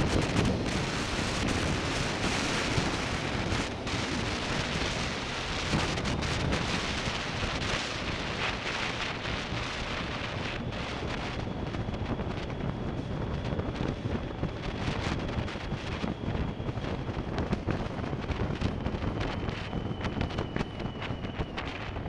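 Wind noise rushing over an action camera's microphone on a moving motorcycle, a 2005 BMW K1200S, with engine and road noise mixed in underneath. A faint steady high whine runs through the second half.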